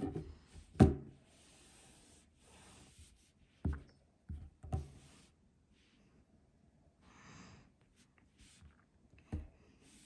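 A few short, sharp knocks or clicks, five in all, the loudest about a second in, with faint patches of rustling hiss between them.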